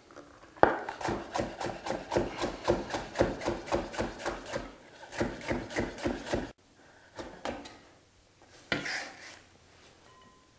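Chef's knife slicing stacked green pepper quarters into thin strips on a wooden cutting board, a quick, even run of blade knocks about three or four a second. It stops abruptly about six and a half seconds in, leaving only a few light knocks.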